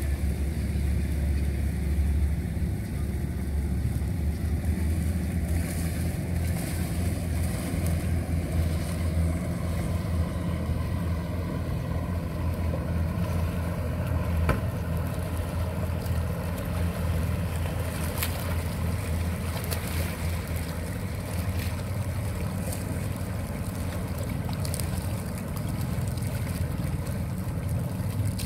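Single outboard motor of a small open boat running steadily as it passes across the bay, a continuous low drone.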